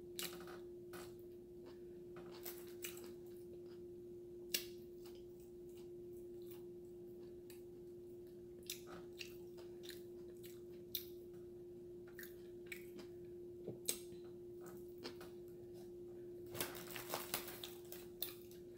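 Close-mic chewing and biting of a triple meat hamburger: scattered wet mouth clicks and smacks, thicker near the end, over a steady low hum.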